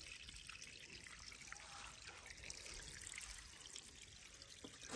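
Faint, steady hiss, close to silence, with a few tiny ticks.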